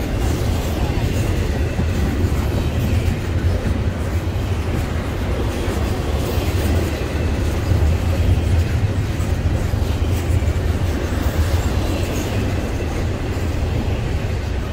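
Container-laden double-stack intermodal well cars rolling past: a steady, loud rumble of steel wheels on rail.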